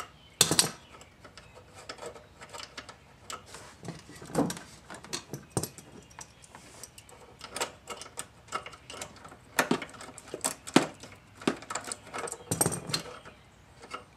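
Hand tools working a small 7 mm screw under a truck's dashboard: irregular metallic clicks, clinks and taps, a few of them sharper knocks, with no steady rhythm.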